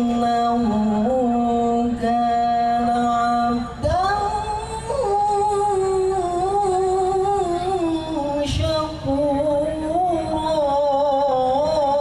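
A man's voice reciting the Quran in a melodic chanting style, holding long ornamented notes. About four seconds in, a short break comes, and then a longer phrase is sung at a higher pitch.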